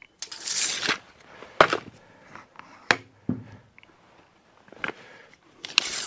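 Handling noises from measuring a PTO drive shaft with a tape measure: a short rustling hiss near the start, then scattered clicks and taps, with another brief rustle near the end.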